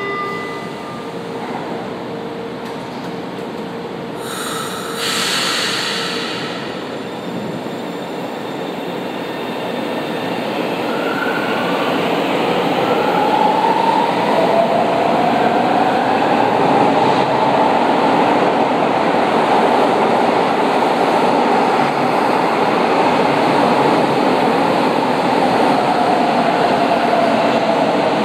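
São Paulo Metro Line 1 train pulling out of an underground station: a short burst of air hiss about five seconds in, then a whine that rises in pitch as the train gathers speed, with the running noise of the cars growing louder.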